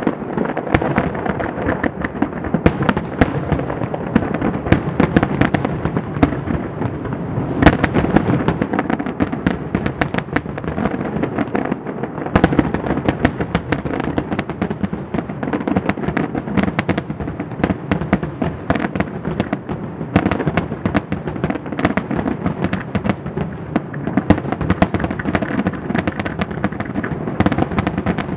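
Aerial firework shells bursting in rapid succession: a dense, unbroken barrage of bangs mixed with crackling, with no pauses between bursts.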